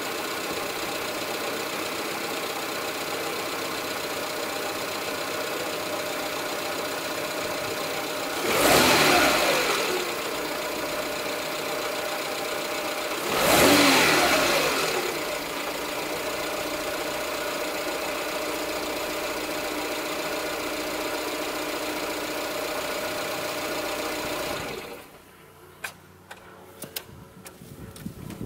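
Renault Clio 3 petrol engine idling on LPG through a newly replaced intermediate exhaust pipe, running steadily with no misfire and no exhaust leak. It is blipped twice, rising and falling, about a third of the way in and again five seconds later, then shut off near the end, leaving a few faint clicks.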